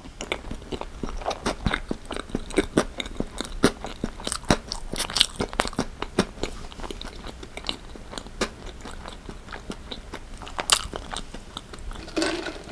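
Close-up chewing of a mouthful of chocolate cake, moist sponge and cream with small crunchy chocolate cookie bits, giving many quick, irregular crunching clicks. Near the end, a sip through a straw.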